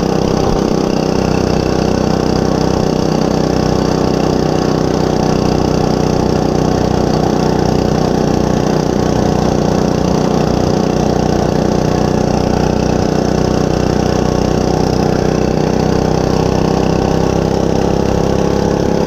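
Monster Moto 105 mini bike's single-cylinder four-stroke engine running steadily at a held throttle, its pitch rising slightly near the end.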